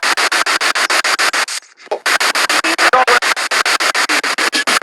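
Spirit box radio sweeping rapidly through stations: choppy bursts of static about nine times a second, with brief snatches of broadcast voice or music, and a short drop-out about a second and a half in.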